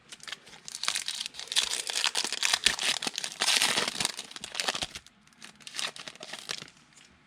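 Foil trading-card pack wrapper being torn open and crinkled: a dense crackle for about four and a half seconds, then a few softer rustles.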